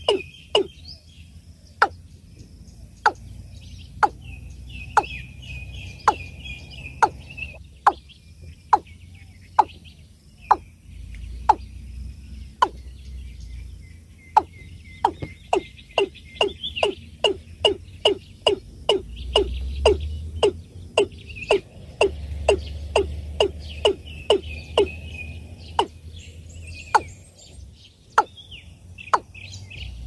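Watercock calling: a long series of short, sharp, hollow notes, coming in runs of about two a second with brief pauses. Smaller birds twitter faintly in the background.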